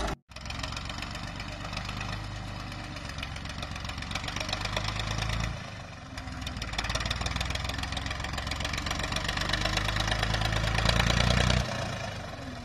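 1966 Massey Ferguson 135's Perkins AD3.152 three-cylinder diesel engine running as the tractor drives. The engine note dips briefly about halfway, builds to its loudest shortly before the end, then falls away.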